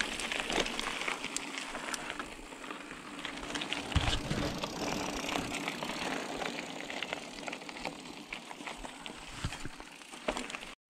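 Mountain bike rolling over a loose gravel track: tyres crunching on the stones, with a constant patter of small clicks and rattles from the bike. A heavier knock comes about four seconds in, like the wheel hitting a bump.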